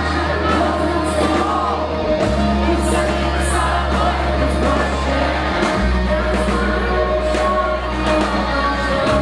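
Loud live rock music from a band with electric guitars, bass and drums, with the lead vocal and a crowd singing along. The bass notes change about two, five and a half and nine seconds in.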